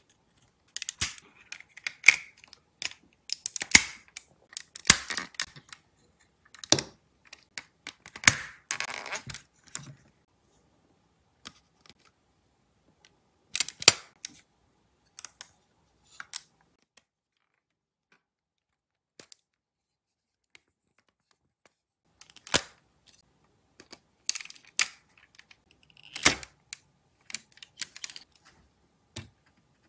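Hard plastic Lego parts of a brick-built mech clicking, snapping and rattling as they are handled and fitted together by hand. The clicks come in clusters, with a longer rustle just before the middle and a mostly quiet stretch through the middle.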